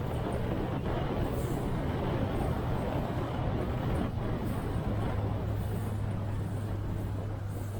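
Yamaha SRX motorboat's engine running steadily under way, with a steady rushing noise beneath it; the engine hum drops slightly in pitch about five seconds in.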